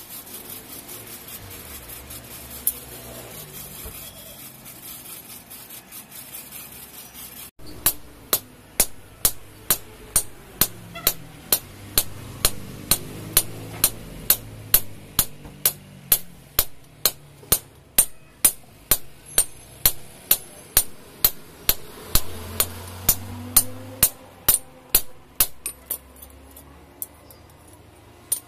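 Hand hammer forging a red-hot iron axe head on a steel anvil block. The blows are sharp and evenly spaced, about two a second, and begin about a quarter of the way in after a stretch of steady low background noise.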